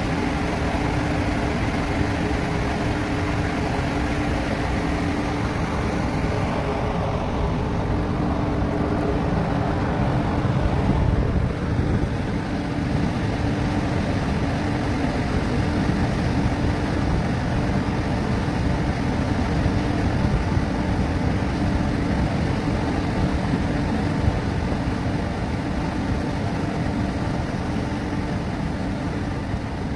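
Steady low drone of a tanker's engine and machinery running as the ship gets under way, a constant hum over a dense rumble.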